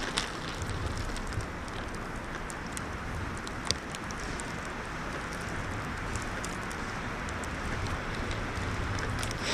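Steady rush of wind in a winter snowstorm, with scattered light ticks of snow and sleet striking.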